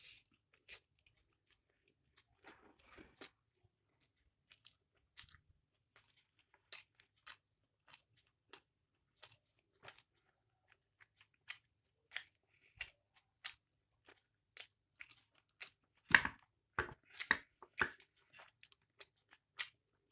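Close-miked chewing of mixed chow mein: scattered wet mouth clicks and smacks, a few at a time, with a louder run of crunchy bites near the end.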